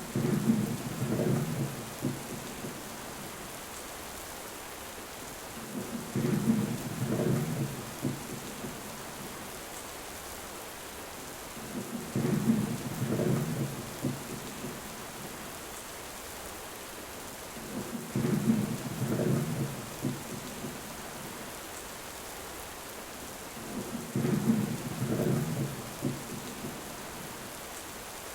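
Steady rain hiss with a short rumble of thunder about every six seconds, each rumble lasting about two seconds and repeating in the same shape, as in a looped storm track.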